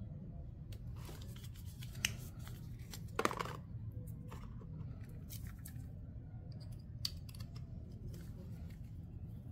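Hands handling a coiled USB charging cable and its plastic plug: scattered light clicks and short rustles, the loudest about three seconds in, over a low steady background hum.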